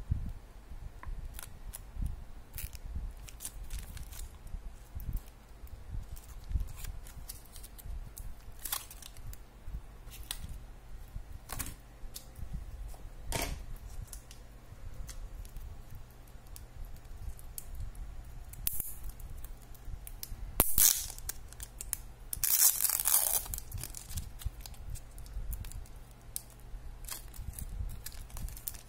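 Clear plastic candy packaging being handled and torn open by hand: scattered crinkles and crackles, a sharp click a little past the 20-second mark, and a louder tear lasting about a second and a half around 22 seconds in.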